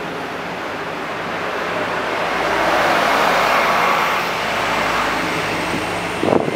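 Steady low engine drone from a small passenger ferry underway, under a rushing noise that swells in the middle and fades again. A short knock comes near the end.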